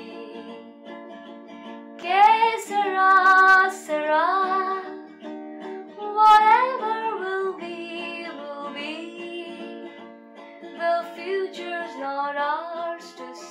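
Background music: a sung song, phrases held and gliding, over a light plucked-string accompaniment.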